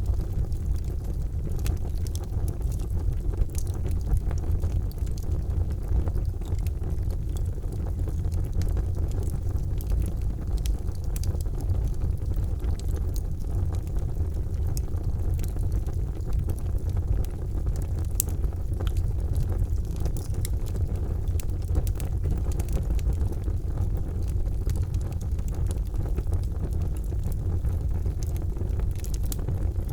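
Charcoal fire burning in a fireplace: a steady low rumble with scattered sharp crackles and pops.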